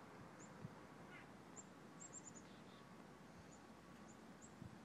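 Near silence with faint, high bird chirps, short and repeated about every half second, including a quick run of four about two seconds in.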